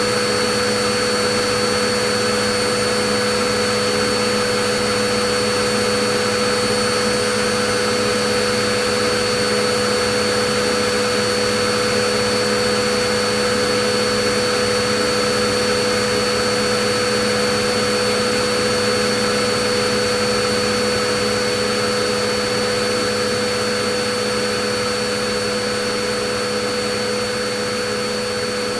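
Vacuum cleaner running steadily: a constant rushing air noise with a steady motor whine, starting to fade out slowly in the last few seconds.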